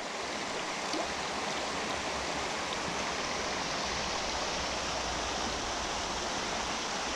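Shallow, rocky mountain creek flowing around a wading angler's boots: a steady, even rush of moving water.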